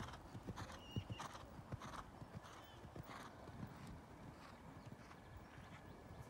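Horse cantering on a sand arena surface: soft, rhythmic hoofbeats about two strides a second, growing fainter in the second half as the horse moves away.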